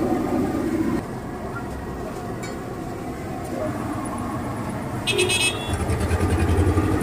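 Busy street traffic with vehicle engines running, and a short horn toot about five seconds in.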